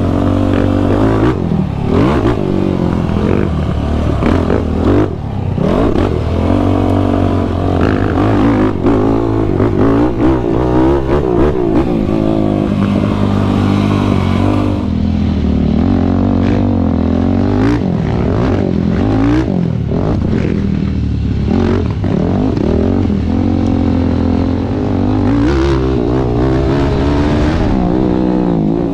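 Yamaha YFZ450R sport quad's single-cylinder four-stroke engine, through a Rossier R5 full exhaust, revving up and down over and over as the quad is ridden hard on a dirt trail, with a few knocks from the machine over the ground.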